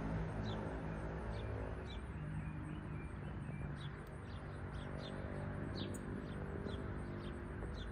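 Northern cardinal giving short, sharp chip notes, repeated irregularly at about two a second, over soft background music.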